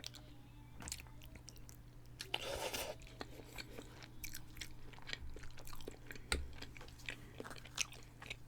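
A person chewing a mouthful of chicken Parmesan and spaghetti, with many small wet mouth clicks and smacks. There is a brief louder noise about two and a half seconds in.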